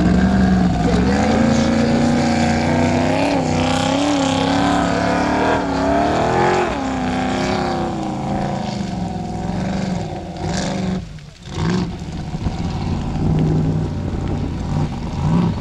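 Formula Offroad buggy's engine revving hard as it climbs a steep gravel slope, the pitch rising and falling with the throttle and wheelspin. The engine drops away briefly about eleven seconds in, then picks up again.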